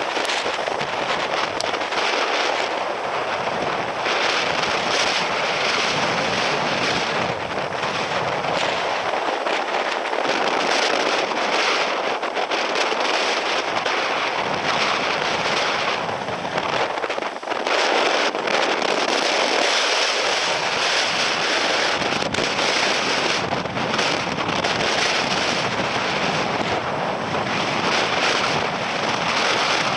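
Typhoon wind and rain rushing over the microphone: a dense, steady rush that rises and falls with the gusts and eases briefly about 17 seconds in.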